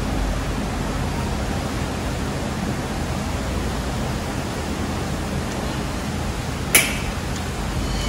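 Steady room noise of a restaurant dining room, an even hiss over a low hum. One sharp click about three-quarters of the way through.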